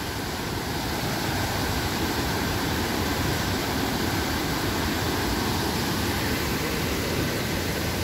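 Fast mountain river rushing over rocks, a steady, unbroken rush of white water.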